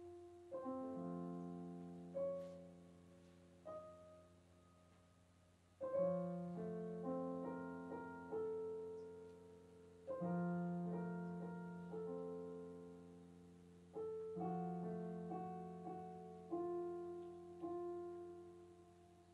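Slow solo piano music: chords and single notes struck every second or two and left to ring and die away.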